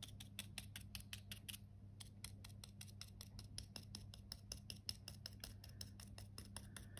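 Small stencil brush stippling paint onto the filler-coated polystyrene cake slice: quick, faint dabbing taps, several a second, over a steady low hum.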